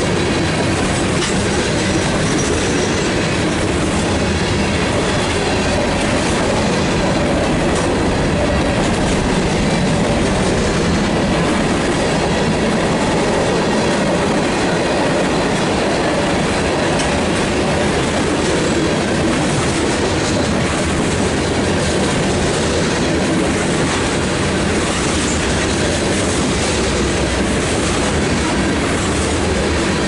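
Freight train's covered hopper and tank cars rolling past close by: a steady, loud rumble of steel wheels on the rails.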